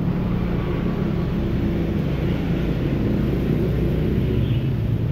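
A motor running with a steady low rumble.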